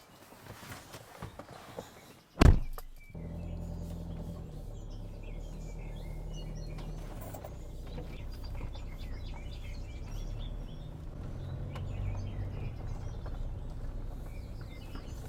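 A loud single thump, typical of a car door shutting, about two and a half seconds in. Right after it a steady low car-engine hum starts and runs on. Birds chirp faintly throughout.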